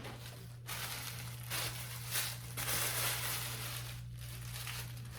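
Packaging crinkling and rustling in repeated handling as the wig is taken out, in several stretches, with a steady low electrical hum beneath.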